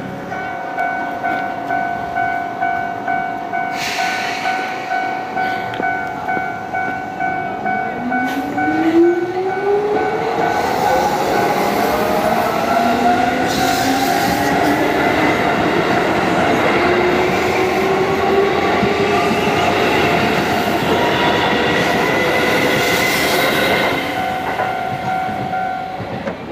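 A Japanese level-crossing alarm rings its steady repeated electronic clang, nearly two strokes a second. Then a Keisei electric train runs past over the crossing, its traction motors giving a whine that rises in pitch as it accelerates, over the rumble of wheels on rail.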